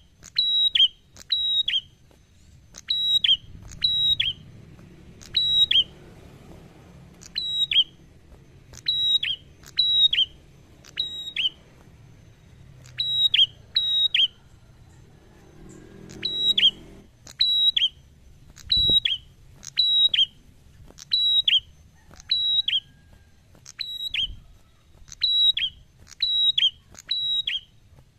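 Ashy tailorbird (prenjak) singing: loud, sharp whistled notes, each dropping slightly in pitch, given in quick pairs and triplets about once a second, with a couple of short pauses.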